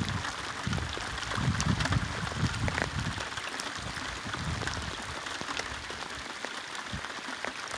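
Steady rain falling on the lake and the canoe: an even hiss of many small drop ticks, with some low rumbling in the first few seconds.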